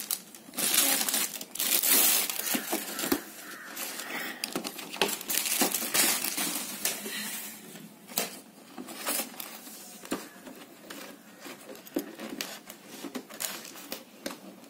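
Plastic packaging crinkling and rustling as hands handle a boxed pair of headphones in a clear plastic bag and a clear plastic case, loudest in the first two or three seconds, then scattered crackles and light clicks.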